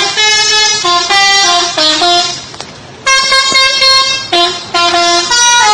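A bus's 'telolet' horn, a modified multi-tone air horn, playing a quick melody of changing notes. About two seconds in it pauses briefly, then sounds a held chord and more stepped notes.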